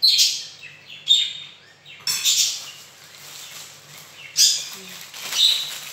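A bird chirping: about five short, sharp calls, each falling in pitch, roughly a second apart.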